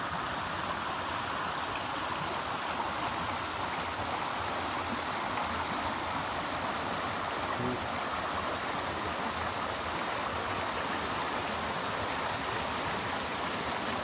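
Shallow creek water rushing steadily over rocks and flat shale in an even wash.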